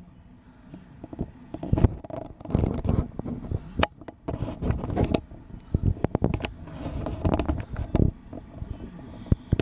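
Irregular close-up rustling, scraping and bumping as kittens scramble about on a cloth cushion and the camera is jostled.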